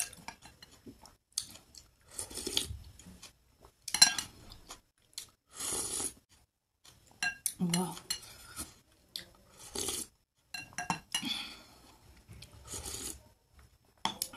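White soup spoon clinking and scraping against a glass bowl of wonton soup, in irregular short knocks and rubs.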